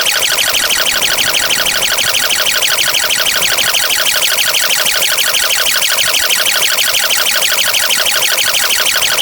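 Loud, harsh electronic buzzing made of looped sound-effect clips stacked on top of one another, pulsing many times a second without letting up.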